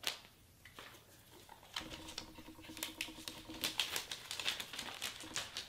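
Clear plastic shrink-wrap being peeled off a new iPhone box and crinkled in the hands: a run of small, irregular crackles that thickens after about two seconds.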